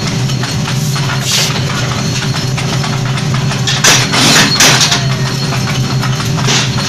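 Forging power press running with a steady hum. About four seconds in, a loud rough burst of noise lasting about a second comes as a red-hot steel blank is pressed in the die. Shorter bursts come about a second in and near the end.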